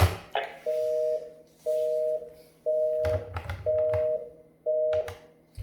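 Telephone busy tone after the call has ended: five steady two-note beeps, about one a second, the signal that the other end has hung up. A sharp click of the handset comes just before the beeps.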